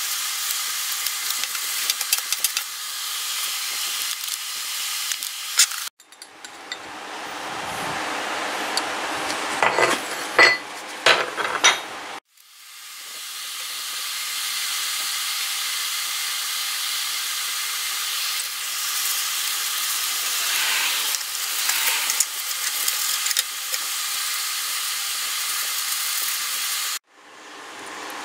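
Paper towel rubbing over a metal knife handle: a steady, scratchy hiss in three stretches that each stop abruptly. In a quieter stretch near the middle there are several sharp clicks of metal being handled.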